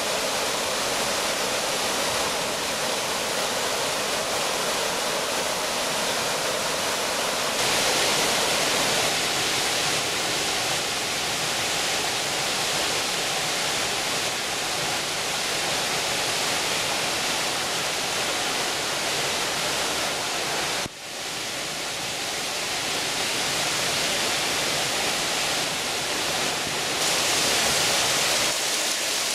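Steady rushing and splashing of small woodland waterfalls, water falling onto pools and rock. About eight seconds in the rush turns brighter and hissier. It drops out for an instant about two-thirds of the way through.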